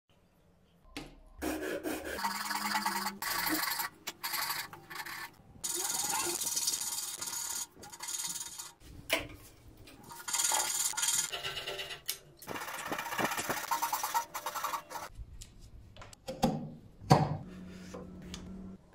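Hand saws cutting dovetails in mahogany, including a coping saw clearing the waste between the pins: several runs of quick rasping saw strokes with short pauses between them. A couple of sharp knocks near the end are the loudest sounds.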